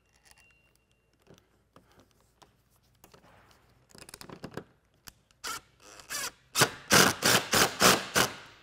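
DeWalt cordless drill/driver run in short pulses, driving the Torx bolt into the cab door hinge to hold a hose P-clip. A few scattered bursts come first, then a quick string of about eight loud pulses near the end.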